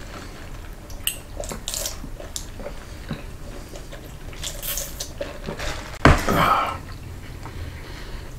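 Drink being sipped through a straw from a paper fountain cup, with faint short slurps and sucking hisses, then a brief loud vocal sound about six seconds in.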